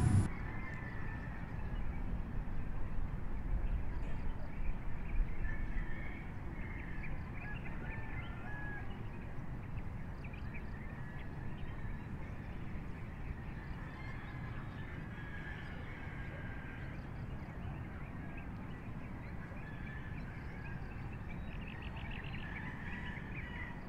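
Outdoor evening ambience: a steady low rumble with faint, scattered bird chirps, busier in the first few seconds, and a quick run of chirps near the end.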